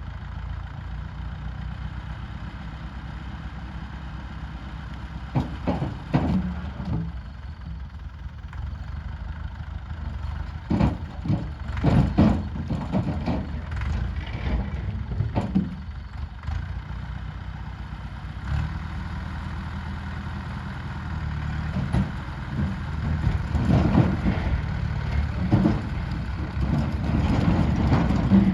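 An engine running steadily, with several bursts of knocks and clattering impacts over it.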